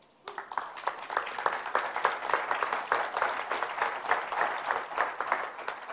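Audience applauding: a dense round of clapping that starts suddenly and dies away near the end.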